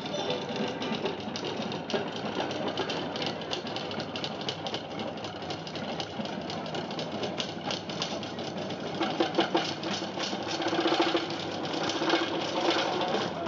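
Tahitian ʻōteʻa drum ensemble playing a fast, driving rhythm of rapid, continuous rolls on tō'ere wooden slit drums. A steady low tone joins about nine seconds in.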